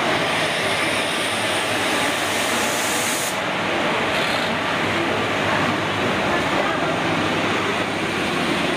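WAP-4 electric locomotive and LHB passenger coaches rolling past slowly as the train pulls in, a steady rumble of wheels and running gear. A higher rushing noise drops away about three seconds in, as the locomotive goes by and the coaches follow.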